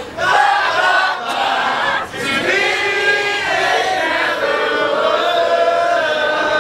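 A large group of voices singing together in chorus, holding long notes.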